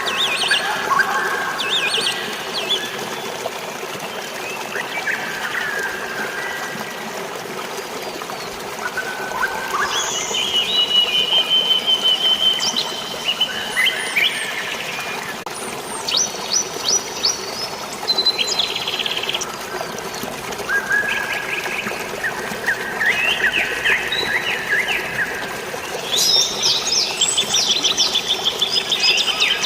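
Several birds chirping and trilling in short overlapping phrases over a steady rush of flowing water, with a busy run of rapid chirps near the end.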